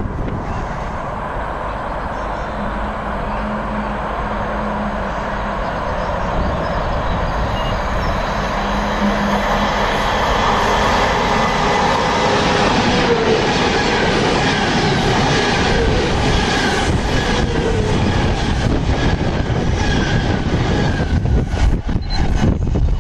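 Class 390 Pendolino electric express train approaching and running past at speed: a wheel-and-rail rumble that grows louder over the first dozen seconds, with a faint steady whine under it.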